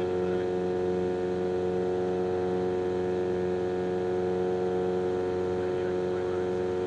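Lake amphibian's pusher piston engine and propeller running at a steady setting, heard inside the cabin as a constant, even drone.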